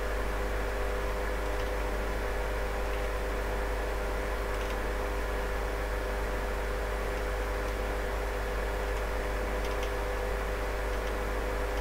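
Cooling fans of running electronic equipment making a steady whir, with a hum of a couple of constant tones underneath. A few faint clicks now and then.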